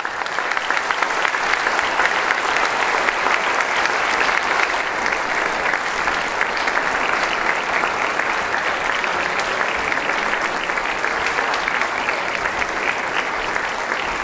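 Concert hall audience applauding: dense, steady clapping with no music playing.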